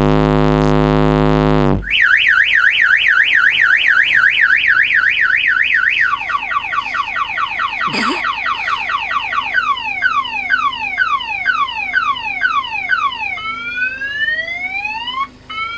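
A deep, loud bass note from car-stereo subwoofers (four 15-inch Kickers) holds for about two seconds and cuts off. A car alarm siren, set off by the bass, then runs through its tone cycle: a fast up-and-down warble, then quick falling chirps, then slower falling sweeps, and rising whoops near the end.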